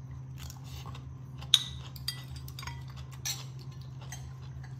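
Metal fork and spoon clinking against dishes: a few light clicks, with one sharper clink about a second and a half in. A steady low hum runs underneath.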